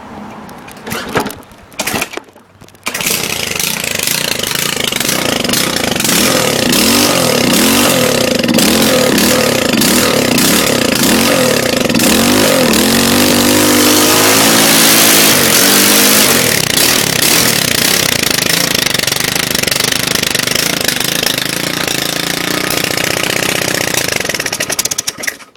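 Small 5-horsepower lawn mower engine with its exhaust pipe removed and no blade fitted, held at high revs by vice grips on the throttle. After two short bursts it catches about three seconds in and runs loud, its pitch wavering up and down and rising midway, then cuts off abruptly near the end.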